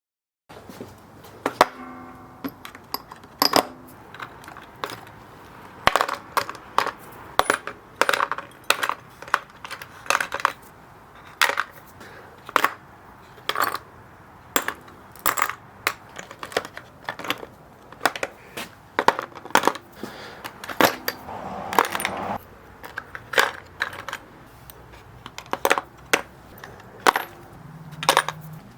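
Loose metal chassis bolts, nuts and washers clinking as they are dropped and sorted one by one, with sharp, irregular clinks about every half second to one second.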